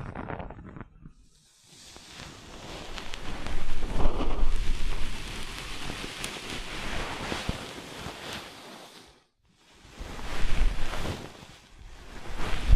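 Close-miked ASMR trigger noise: a long swell of rushing, rustling sound, then after a brief pause two shorter swells.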